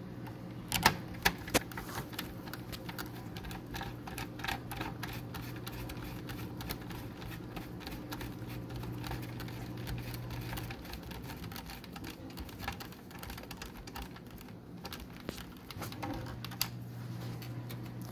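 Irregular small clicks and taps of hands and a screwdriver working on the plastic chassis of a DVR box, with a few sharper knocks about a second in. A steady low hum runs underneath, dropping out about eleven seconds in and returning near the end.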